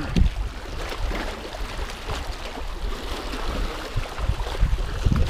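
Sea water sloshing and gurgling against the rocks, with gusts of wind rumbling on the microphone. Right at the start there is a splash as a released queenfish drops back into the water.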